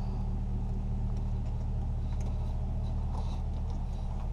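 A steady low mechanical hum with several even low tones, unchanging throughout, with a few faint light clicks over it.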